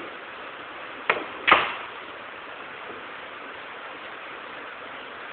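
A billiard shot: two sharp clacks about a second in, roughly half a second apart, a cue striking the cue ball and then the cue ball hitting another ball, the second clack the louder. Steady hiss underneath.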